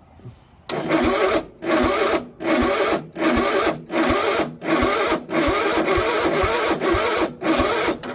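Electric starter cranking the cold engine of a Sears ST12 garden tractor, starting about a second in and stopping just before the end, in surges with a brief dip roughly every three-quarters of a second; the engine does not catch. The choke is frozen, and the owner doesn't think it will start without a boost from another battery.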